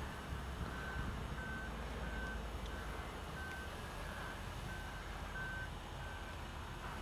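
Vehicle reversing alarm beeping: a single steady high tone repeated about one and a half times a second, stopping near the end, over a low rumble.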